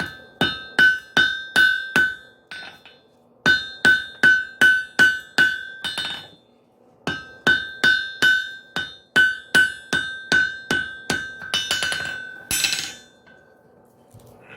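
Blacksmith's hammer striking hot wrought iron on an anvil in three runs of steady blows, about two to three a second, each blow ringing, with short pauses between runs. Near the end comes a quick flurry of light taps and a brief scraping sound.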